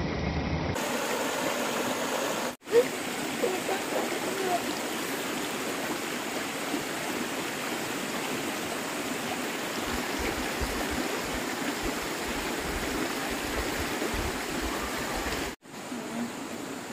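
Shallow mountain stream rushing steadily over rocks, an even watery hiss, with one brief sharp knock about three seconds in.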